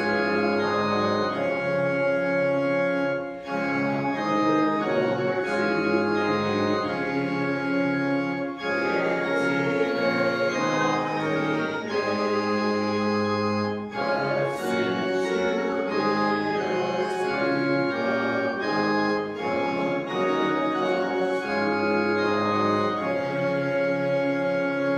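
Church organ playing a slow hymn-like piece in sustained chords, with brief breaks between phrases.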